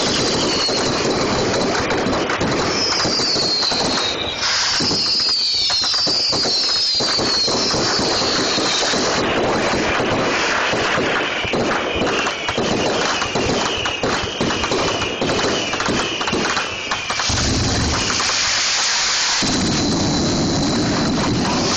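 Fireworks going off at close range: dense, continuous crackling and popping, with several falling whistles over it.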